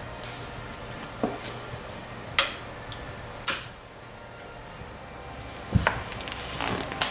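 Several sharp, irregular clicks and taps from hands working a small neodymium magnet and a tube of CA glue against the edge of a metal door, over a faint low hum.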